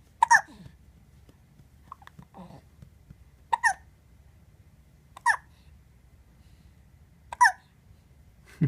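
Hiccups: four short, sharp, high-pitched hiccups, each a couple of seconds apart.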